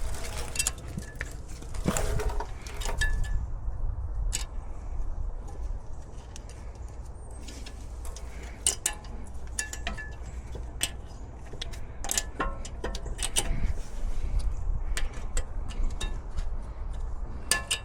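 Scattered metallic clicks and clinks of hand tools and brake parts being handled at a car's rear brake, over a steady low rumble.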